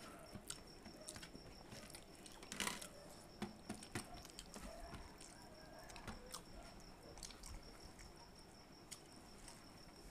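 Quiet hand-eating from steel thali plates: scattered soft clicks and squelches of fingers mixing rice and curry against the plates, and chewing. A faint steady high-pitched tone sits behind them.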